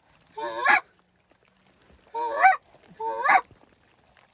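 Three loud goose honks, each a short call whose pitch breaks upward, the last two close together.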